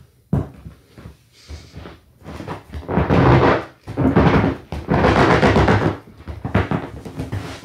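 Hand flicking and then squeaking across the taut vinyl of an inflated Intex orca whale pool float: one sharp tap about a third of a second in, then long loud squeaky rubbing strokes. How high these sounds ring is the sign of how tightly the inflated vinyl is pulled.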